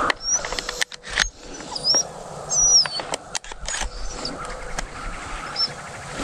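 Retriever dog whining in short, high-pitched squeals that rise and fall, several times over, eager to retrieve a shot dove it saw go down. A few sharp clicks and rustles mixed in.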